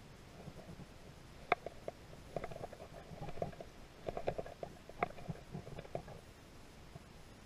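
Faint pack of beagles barking on a rabbit chase: an irregular string of short, overlapping yelps that starts about half a second in and dies away after about six seconds.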